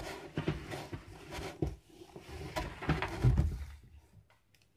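Cardboard packing pieces being pulled out of a large carton: irregular rustling and scraping with dull knocks, the loudest about three seconds in.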